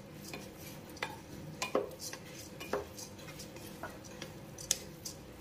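Wooden spatula stirring dry rice, peas and ground spices in a pressure cooker: a soft scraping with occasional knocks of the spatula against the pot.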